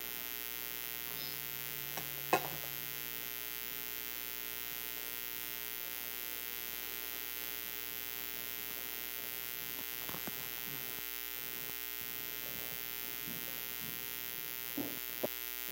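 Steady electrical mains hum with a faint hiss, broken by a few short faint knocks, the loudest about two seconds in.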